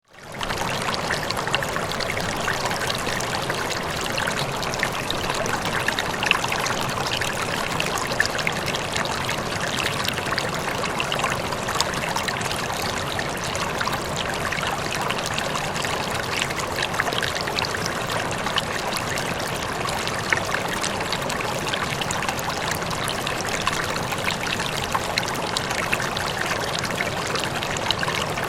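Running water flowing steadily, with fine splashing and trickling throughout. It fades in over the first half second.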